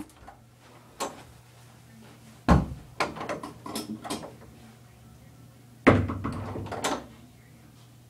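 Two heavy thumps about three seconds apart, each followed by a run of clicks and knocks, with a faint steady low hum underneath.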